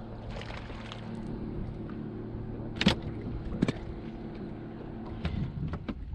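A steady, even motor hum, with two sharp knocks about three seconds in and a few lighter clicks near the end while a fish is reeled up to the boat.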